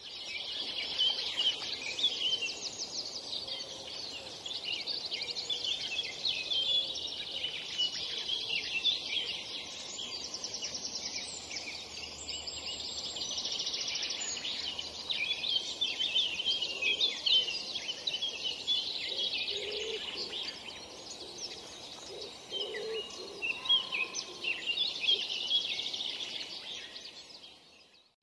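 Dense chorus of small birds chirping and trilling without a break over a faint steady background noise, fading out at the very end.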